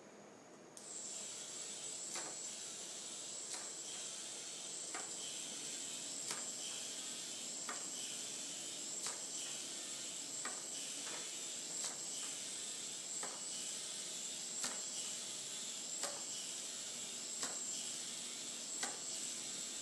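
Eight-legged K'Nex walking robot's motor and plastic gear train switched on about a second in, then running steadily with a hiss and a thin high whine, with a light click about every second and a half as the leg mechanism cycles.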